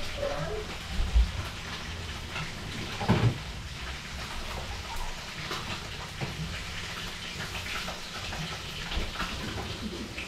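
Oil sizzling steadily as fish fries in a wok on a gas stove, with a couple of dull knocks about one and three seconds in.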